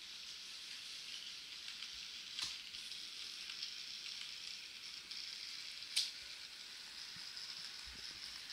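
Model electric railcar running slowly along the track: a faint steady hiss of wheels and motor, with two sharp clicks, the second louder, a little over two seconds in and again about six seconds in.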